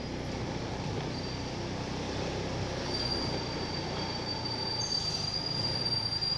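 Market street background noise with a low hum, and a thin, steady, high-pitched whine that grows stronger about three seconds in.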